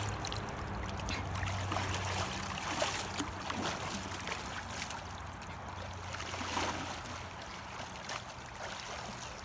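Shallow river water flowing and splashing as a person wades through it and crouches down into the icy water, with scattered small splashes.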